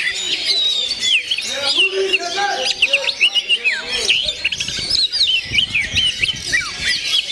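Male oriental magpie-robin (kacer) singing a fast, varied song of quick whistled notes that sweep up and down, delivered without pause.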